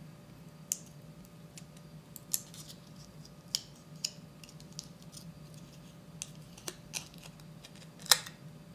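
Thin aluminium foil wrapper crinkling and tearing in irregular sharp crackles as it is peeled off a chocolate coin, the loudest crackle near the end.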